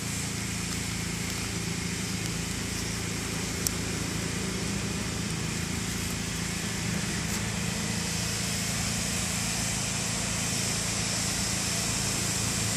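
Pressure washer running steadily, a constant engine drone with a hiss above it.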